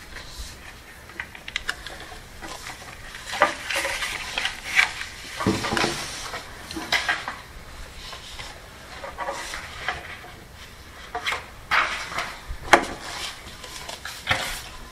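Irregular rustling with scattered light knocks and clinks of objects being handled close to the microphone.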